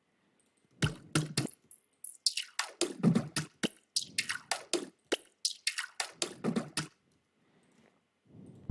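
A toilet-flush water sample chopped into a drum fill: a quick run of wet, drip-like hits with reverb, swept by a high-pass filter. It stops about seven seconds in.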